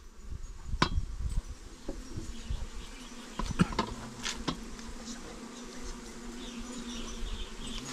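Bees buzzing in a steady drone, with a few sharp knocks from handling, the loudest about three and a half seconds in.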